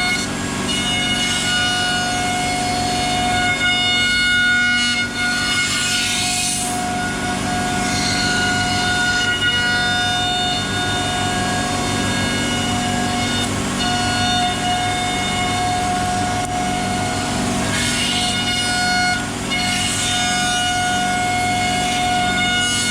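CNC router spindle running with a steady high whine while machining wood, with swells of cutting noise as the bit works through the stock. The whine drops out briefly a few times and comes back.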